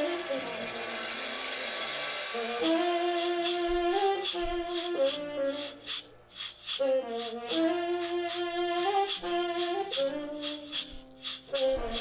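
Live saxophone playing a slow melody of long held notes, over acoustic guitar, with a hand shaker keeping a steady beat of about three shakes a second from a couple of seconds in.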